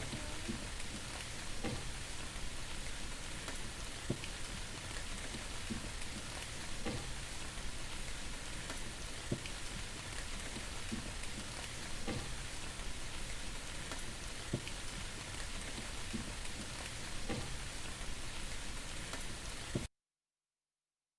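Steady rain falling, an even hiss with a louder single drip every couple of seconds; it cuts off suddenly near the end.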